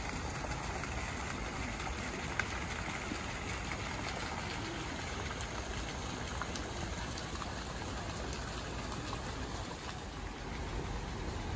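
Fountain jets splashing steadily into a shallow pool, an even patter of falling water.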